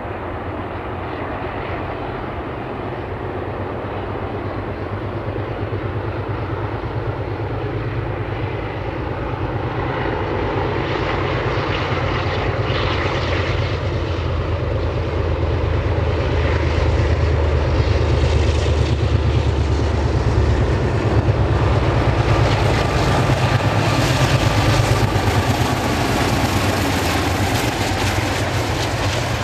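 Two ALCO diesel-electric locomotives under power hauling a passenger train, a steady low engine drone that grows louder as they approach and pass close by.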